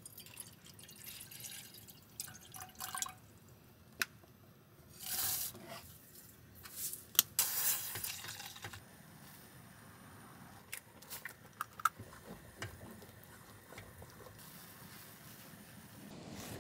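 Water poured from a small pot into a stainless steel saucepan, then porridge stirred in the saucepan, the utensil clinking and scraping against the pot in several sharp knocks.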